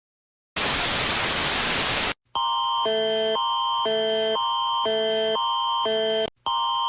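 A burst of white-noise static lasting about a second and a half, then the Canadian emergency alert attention signal (Alert Ready tone): two steady chords swapping back and forth every half second over a constant high tone, with a brief dropout near the end.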